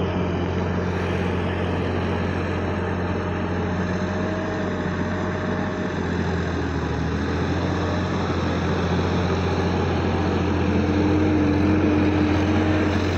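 Sonalika DI-50 RX tractor's diesel engine running steadily under load as it works a rear implement through a flooded paddy field. It grows a little louder near the end.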